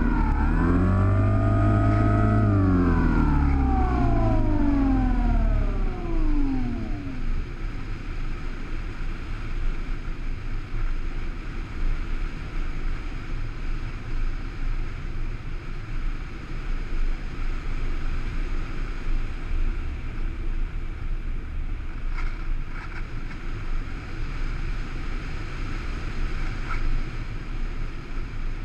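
Electric motor and propeller of an RC plane heard from an onboard camera: a whine that dips, rises, then slides down in pitch and fades out over the first several seconds as the motor slows. After that, steady wind rush as the plane glides.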